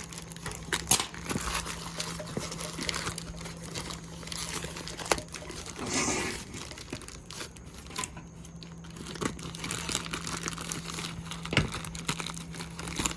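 Packaging being handled and unwrapped: irregular crinkling and rustling with scattered small clicks and crackles.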